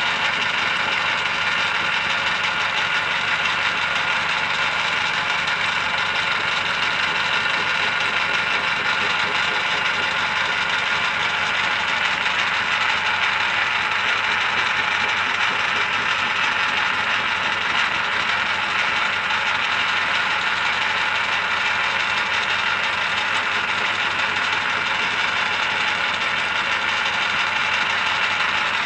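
Metal lathe running steadily while taking a spring cut on a titanium ring, a continuous mechanical hum with steady tones over a hiss.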